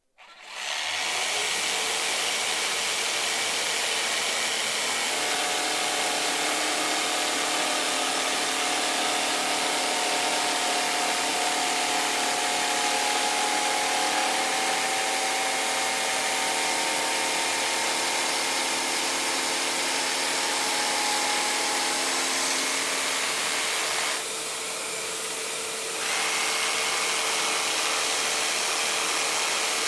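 Bosch jigsaw starting up and running steadily as its blade cuts through plywood, briefly quieter about 24 seconds in.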